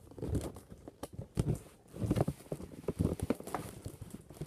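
Irregular knocks, taps and rustles of a cardboard toy box being handled.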